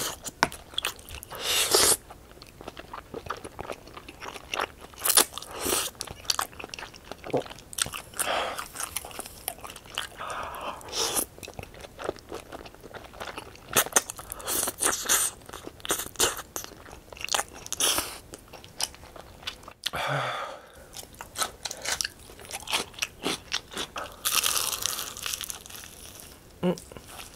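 Close-miked eating sounds: chewing spicy tteokbokki and glass noodles, then biting into crunchy Honey Combo fried chicken near the end, with many short sharp crunches throughout.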